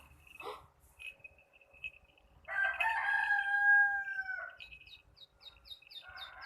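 A rooster crowing: one long crow starting about two and a half seconds in and lasting about two seconds, its held note dropping at the end, with a second crow beginning near the end. Small birds chirp around it, sparse single chirps at first, then a quick repeated chirping from about the middle on.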